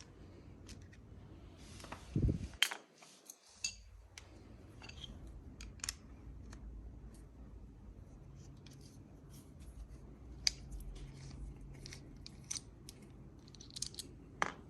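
Scattered small metal clicks and taps of an Allen key and brake parts being handled and unscrewed, with a louder knock about two seconds in.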